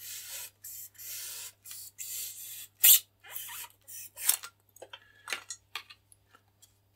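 A small knife blade cutting back a foam block glued into a wing, in a run of short rasping strokes about two a second. One loud sharp scrape comes about three seconds in, and shorter scratches and clicks follow toward the end.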